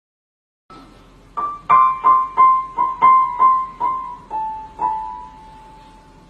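Piano music: a simple melody of single high notes, about three a second, ending on a held note that fades.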